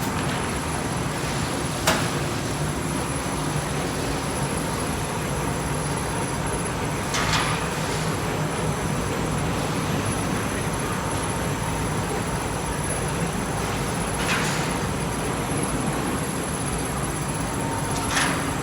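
Gluing machine on an evaporative cooling pad production line, running steadily with a low hum. There is a sharp click about two seconds in and a short hissing burst three times.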